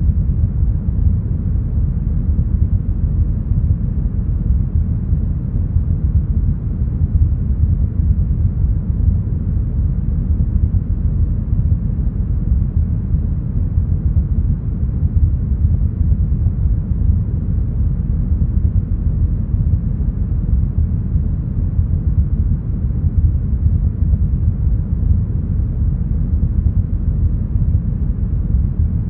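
Deep smoothed brown noise: a steady, even low hiss with its weight in the bass, thinning out toward the treble and with nothing in the high end, unchanging throughout.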